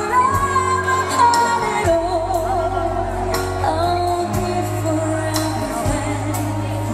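Female lead singer performing a slow power ballad live with a band: a held, wavering sung melody with vibrato over sustained low bass notes and light, evenly spaced cymbal ticks.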